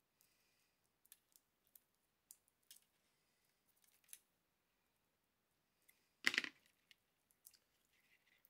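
Faint scattered clicks and scratches of a small screwdriver tip picking a hole in the wire screen of a DRO scale cable, with one louder knock about six seconds in.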